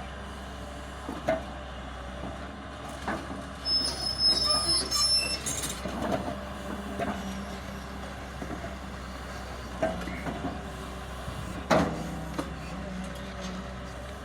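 Excavator diesel engine running steadily under load, with occasional metallic clanks and a brief high-pitched metal squeal about four seconds in as the roller attachment works.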